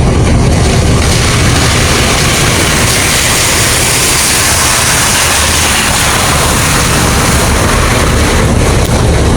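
Steady, loud rumble and rushing noise of a vehicle in motion.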